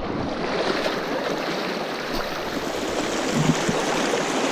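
Mountain trout stream running over rocks: a steady rush of flowing water.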